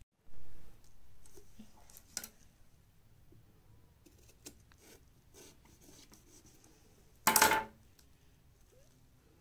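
Small knocks, clicks and scrapes of a kitchen knife prying loose the cut-out mouth pieces of a carved pumpkin. There is one loud short noise a little after seven seconds in.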